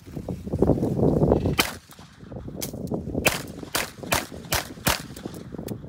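Streamer 2.5 traumatic revolver in 9mm P.A. firing a string of shots. One sharp report comes about a second and a half in, then a quick run of five about four tenths of a second apart near the end. A loud low rushing noise fills the first second or so.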